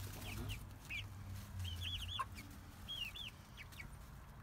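Young chickens peeping and cheeping: short, high, arched chirps in quick clusters of two to four, coming every second or so.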